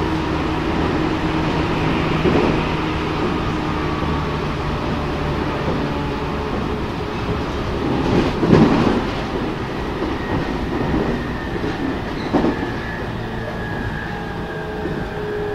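Inside a JR Central 313 series electric motor car running at speed: steady wheel-and-rail rumble with motor whine. A burst of clatter comes about halfway through, likely wheels over joints or points. Near the end the motor tones fall slowly in pitch as the train slows.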